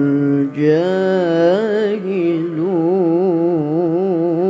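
Solo male Quran recitation in the melodic tilawah (mujawwad) style: one long melismatic phrase with a wavering, ornamented pitch. A short break about half a second in is followed by a jump up to a higher pitch, and quick trills follow in the second half.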